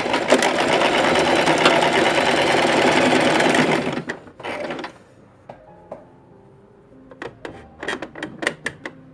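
Sewing machine running in one steady stretch of stitching, stopping a little under four seconds in, with a brief second run just after. Then come several light clicks and taps.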